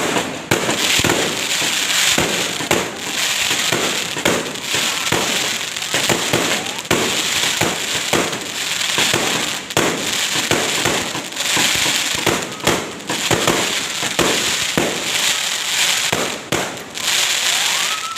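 Fireworks going off in quick succession: a dense, unbroken run of bangs and cracks over a steady crackling hiss.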